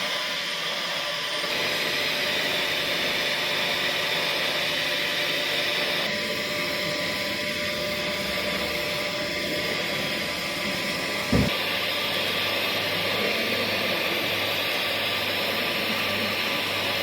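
Welding equipment running with a steady hiss and hum, and a single short thump about eleven seconds in.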